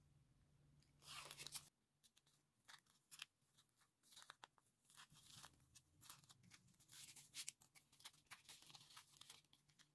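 Faint rustling and small clicks of grosgrain ribbon being handled and gathered by hand, a little louder for a moment about a second in; otherwise near silence.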